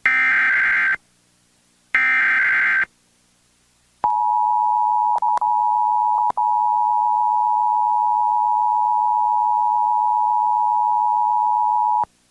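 Emergency Alert System encoder sending the last two of its three one-second SAME header data bursts, screechy digital tones a second apart. After a short gap comes the EAS two-tone attention signal, a steady dual tone held for about eight seconds that breaks up briefly twice near its start. The header bursts carry the coded alert, and the attention tone announces the spoken alert message that follows.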